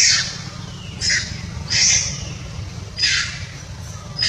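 Short harsh animal calls, five of them about a second apart, over a steady low hum.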